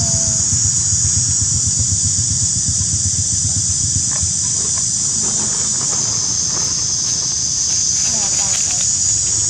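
Steady high-pitched drone of insects over a continuous low rumble, with a brief faint squeak at the very start.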